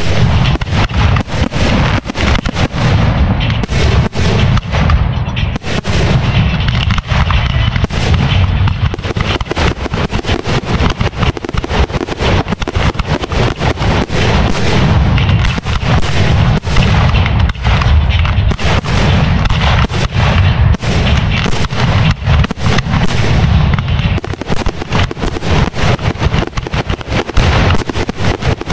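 Aerial fireworks going off in a rapid, unbroken barrage of booms and crackling bursts, many shells overlapping with no pause.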